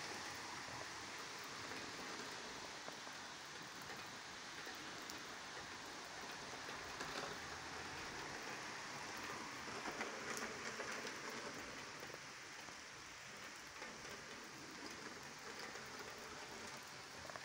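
Steady rain falling on paved ground, a continuous even hiss.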